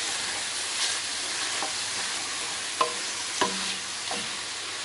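Chicken, vegetables and noodles sizzling in oil in a frying pan as they are stirred, a steady hiss with a couple of light taps of the utensil against the pan about three seconds in.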